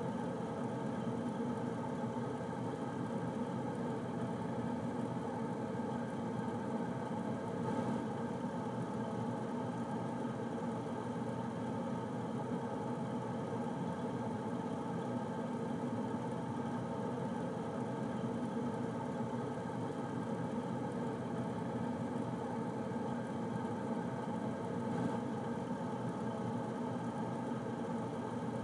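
Air conditioner running steadily: a constant whirring hum of fan and compressor, with no change in level or pitch.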